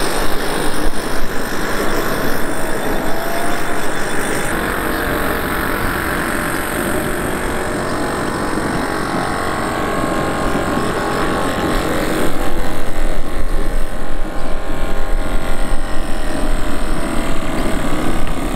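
RC model steam speedboat running fast, its high-pressure steam engine and burner making a steady, noisy hiss. The sound gets louder and more uneven about two-thirds in.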